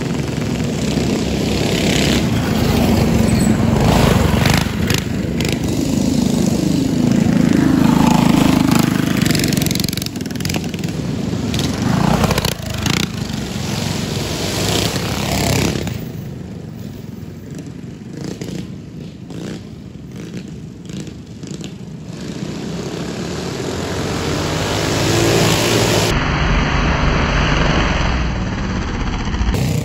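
Small-engine mini bikes racing on a dirt drag strip, their engines revving hard as they pass close by. The engine noise is loudest in the first half, drops off in the middle, then rises again near the end as two bikes run past.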